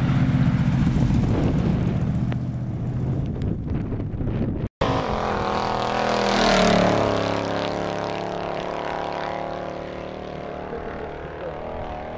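An early-1930s Ford hot rod coupe's engine running steadily as the car drives on the ice. After a sudden cut, a 1957 Chevrolet pickup's engine grows louder as it approaches, then drops in pitch and fades as it passes.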